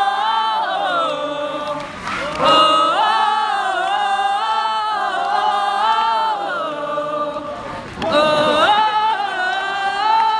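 Concert crowd singing a melody together without instruments, in long held phrases that break briefly about two seconds in and again near the eight-second mark.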